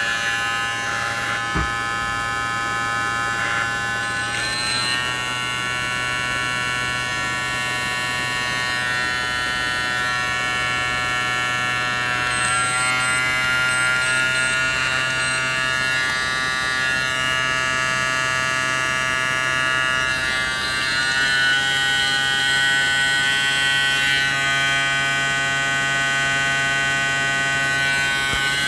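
Kemei KM-2242 cordless hair clipper running with a steady buzz. Its pitch shifts slightly about three times.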